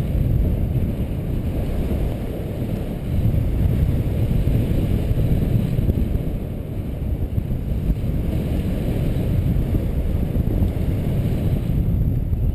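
Wind buffeting the camera microphone during a paraglider flight: a steady, dense low rumble of rushing air.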